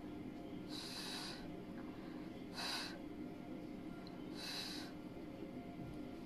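A person's sharp, breathy exhales, three of them about two seconds apart, each a short hiss.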